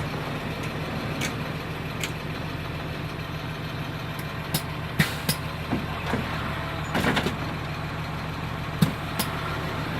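Caterpillar C7 inline-six diesel of a school bus idling with a steady low hum, with a few short clicks and knocks scattered through.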